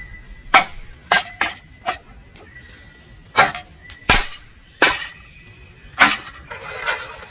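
Pallet wood being struck with a hand tool: about eight sharp, irregular knocks, the loudest about halfway through, followed near the end by a brief rasping scrape.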